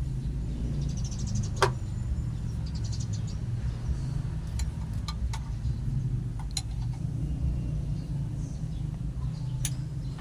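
A steady low engine rumble, with a few sharp metallic clicks and taps scattered through it.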